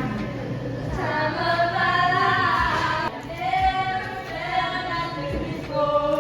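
Background music with a female singing voice.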